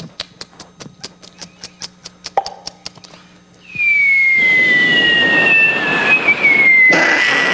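A clock ticking about four times a second, made by mouth, then about three and a half seconds in a loud rushing noise with a high whistle gliding slowly down in pitch, the vocal imitation of incoming artillery fire.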